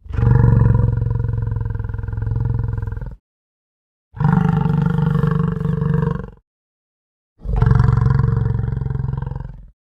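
Dinosaur roar sound effect for an Arrhinoceratops, heard three times. Each is a deep, pitched roar of two to three seconds, cut off into dead silence before the next.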